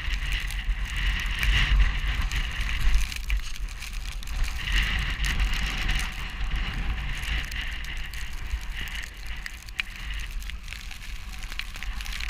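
Snowstorm wind buffeting the microphone: a low rumble that swells and eases in gusts, with a hiss over it and a few scattered clicks.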